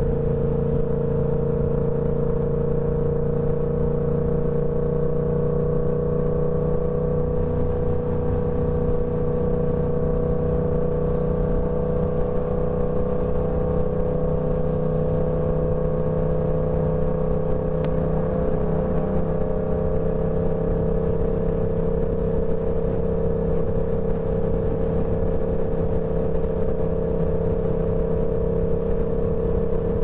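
Yamaha R7's parallel-twin engine through a TOCE full-system exhaust, running under way at a nearly constant engine speed. Its note holds steady and edges up slightly past the middle.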